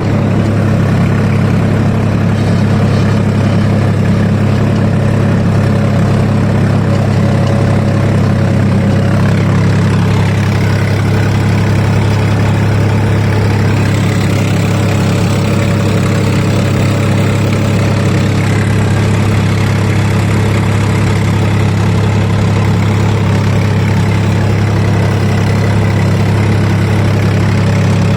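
Swaraj 963 CRDI tractor's diesel engine running loud and steady at low revs, about 1200 RPM, while it pulls a plough deep through the soil in a low working gear.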